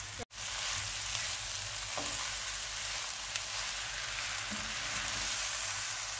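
Boiled rice and sugar sizzling in hot ghee in a pan as a plastic spatula stirs the sugar in, a steady sizzle with a few faint spatula ticks. The sizzle briefly cuts out just after the start.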